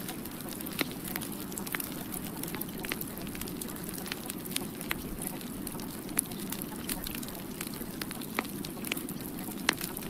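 Steady low rushing noise dotted with sharp, irregular crackles and pops: a crackling background ambience track.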